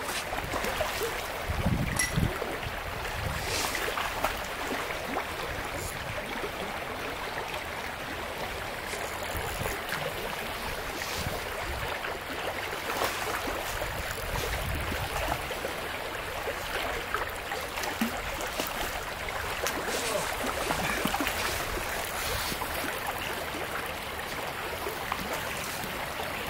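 Small creek's water flowing in a steady rush, with a couple of soft low bumps along the way.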